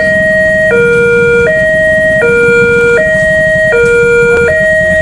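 Railway level-crossing warning siren sounding a two-tone hi-lo pattern, switching pitch about every three-quarters of a second, over a low rumble. The uploader calls this crossing's siren unusual and faulty.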